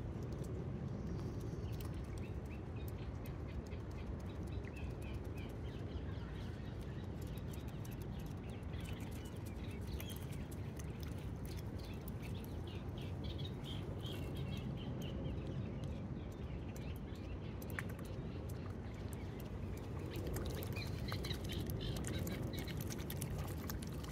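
Wild birds chirping now and then over a steady low background rumble.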